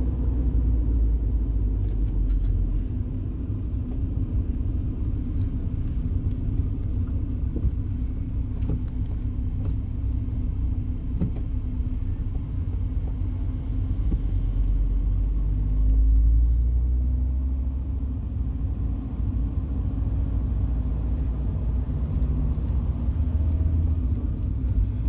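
Steady low rumble of road and engine noise inside a moving car's cabin, growing briefly louder about sixteen seconds in as the engine note rises a little.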